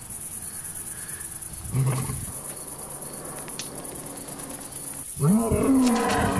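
Insects trilling steadily in the background. A short low growl comes about two seconds in, and a louder roar-like call rises and falls near the end.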